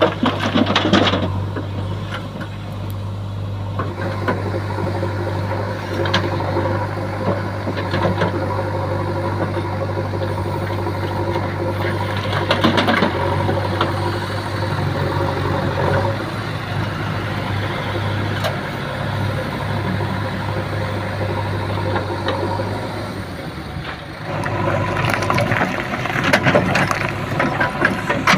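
JCB 3DX backhoe loader's diesel engine running steadily, its pitch shifting partway through; near the end it dips briefly, then picks up louder.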